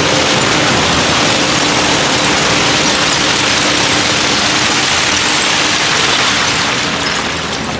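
Diesel engine of a Shantui DH17C2 bulldozer running steadily: a loud, even rush over a steady hum, easing slightly near the end.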